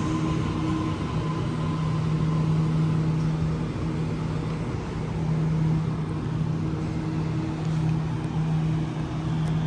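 Electric double-deck Waratah train humming steadily at the platform. A higher whine from another train pulling away fades out about a second in.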